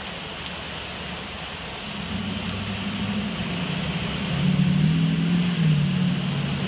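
Pickup truck driving through deep floodwater over the steady hiss of heavy rain. Its engine hum builds from about two seconds in and is loudest near the end, while a faint high whine climbs in pitch as the truck nears.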